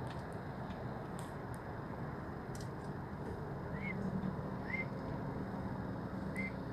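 Steady road and engine noise inside the cabin of a Honda car driving at speed on a highway, with a few faint short chirps in the second half.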